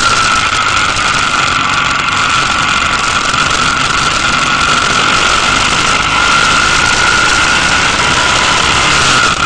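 Motorcycle running at a steady cruising speed, its engine under wind rushing over the on-bike camera's microphone, with a steady high tone held throughout.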